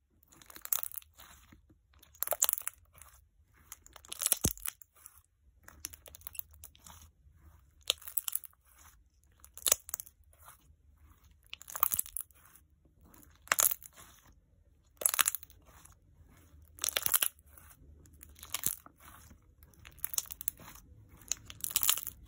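Clear jelly slime squished and pressed by hand, giving crackly, squelchy pops of trapped air in short bursts about every one and a half to two seconds.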